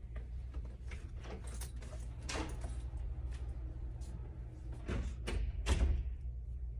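A door opening and closing, among handling and rustling of clothes and hangers, with the loudest knock a little before the end, over a steady low hum.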